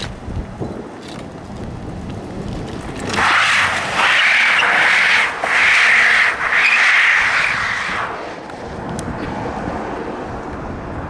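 Car tyres squealing hard for about five seconds as the car spins a smoky donut on tarmac, with two short breaks in the squeal; it starts about three seconds in and dies away near the end.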